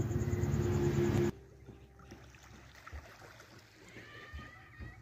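A steady low hum cuts off abruptly about a second in. After it, small waves lap faintly on a pebble shore.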